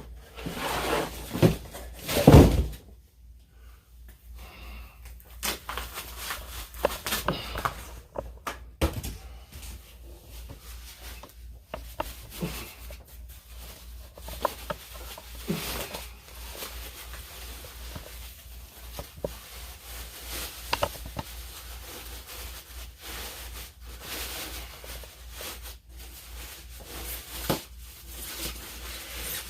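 Packaging being handled while a guitar is unboxed: rustles, clicks and knocks of foam and cardboard, with one heavy thump about two seconds in.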